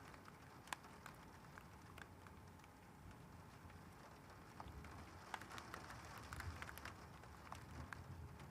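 Faint rain during a thunderstorm, with scattered drops ticking on a hard surface that come more thickly in the second half.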